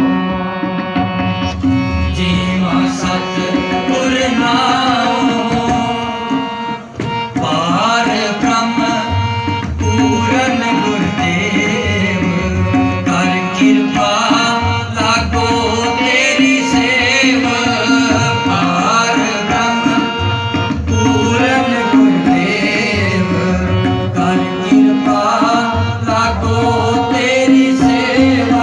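Sikh kirtan: a tabla plays a steady rhythmic pattern under sustained harmonium chords, while a male voice sings ornamented, wavering melodic lines.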